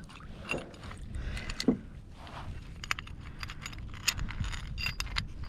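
Metallic clinking and rattling as a small kayak anchor is hauled up out of the water, in short scattered clicks that come thick and fast in the second half, over a low rumble.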